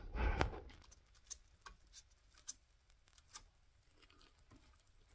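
Faint handling noises: a short soft rustle, then a few sharp, sparse clicks about a second apart.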